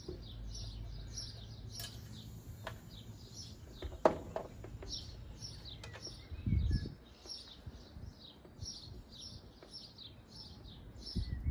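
A bird chirping over and over, about two chirps a second. A sharp click about four seconds in and a few dull bumps come from hands working the meter's test point and rubber tube.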